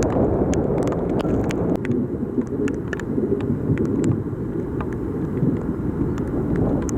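Torrential rain: a heavy, steady wash of noise with scattered sharp drop hits, and wind on the microphone.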